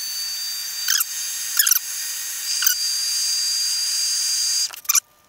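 Small heat gun running with a steady hiss and a high whine, with a few clicks of handling. It cuts off suddenly near the end.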